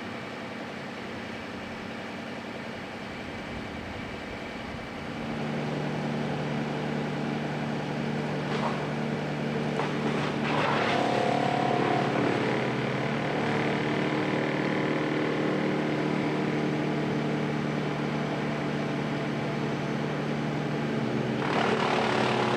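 A motor engine running steadily, getting louder about five seconds in and holding an even pitch, with a few short knocks around the middle.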